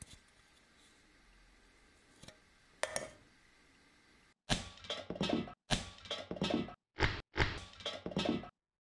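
Faint clinks of an aluminium soda can being handled. About halfway in comes a choppy run of loud knocks and clatter, broken by moments of dead silence: the can being shot with an air pistol and knocked over on a wooden bench.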